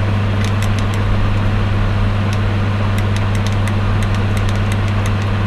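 Steady low electrical hum, with faint irregular crackling ticks over it.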